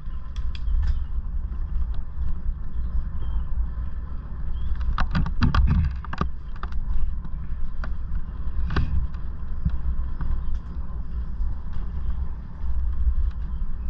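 Wind rumble on a helmet-mounted microphone over the tyre noise of an e-bike riding a rough gravel track. The bike clatters in a quick run of knocks about five to six and a half seconds in, and again near nine seconds.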